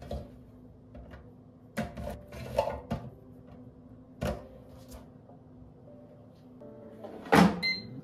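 Chestnuts being dropped one by one into an air fryer basket, a few light knocks against the basket, over soft background music. Near the end a louder clunk, followed by a short electronic beep.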